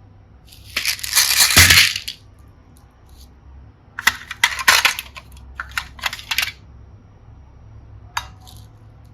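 Crunchy, crackling handling sounds from slime and small toys: a loud crunch about a second in, then a run of sharp clicks and crackles, and two last clicks near the end.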